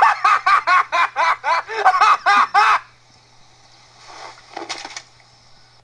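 A person laughing in a long, rhythmic run of high 'ha-ha-ha' syllables, about four a second, that stops about three seconds in. A brief, fainter vocal sound follows near the end.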